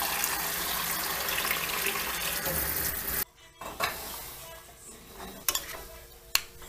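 Kitchen tap running into a steel pot, a steady rush of water refilling the saltfish with fresh water. It cuts off suddenly about three seconds in, leaving a much quieter stretch with a few light clicks.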